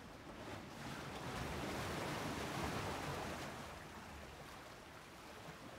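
Sea waves washing: a soft hiss of water that swells for about two seconds in the middle and then fades again.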